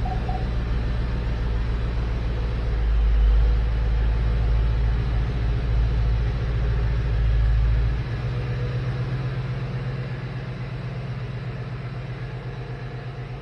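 Ford Mustang GT's 5.0-litre V8 running at idle as the car reverses down off its ramps. The low rumble swells about three seconds in and fades after about eight seconds as the car moves away.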